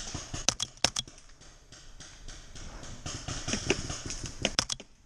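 Sharp pops of paintball markers firing: a few quick shots about half a second in and another quick group near the end, with faint rustling between.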